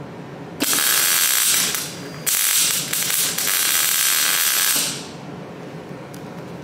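Electric arc welding crackling in two bursts, about one and a half and two and a half seconds long, as a rear shock mount is tack-welded to the buggy's steel frame.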